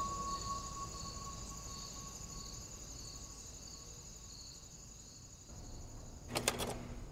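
Faint crickets chirping in a steady pulsing rhythm, fading out along with the tail of ambient music. A brief crackle of clicks comes near the end.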